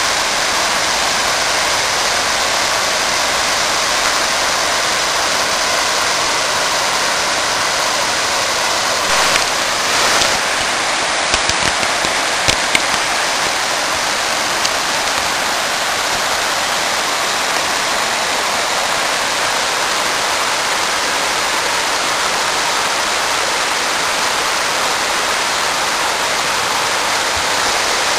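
Steady rushing water noise with no change in level, and a few light knocks and clicks near the middle.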